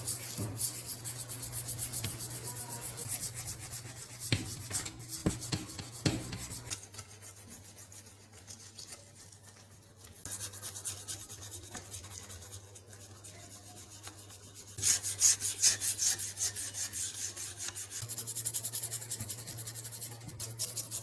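Rapid back-and-forth strokes of a hand abrasive scrubbing a rusty sledgehammer, about four strokes a second. The strokes ease off for a couple of seconds near the middle and are loudest a little after that. A steady low hum runs underneath, with a few knocks early on.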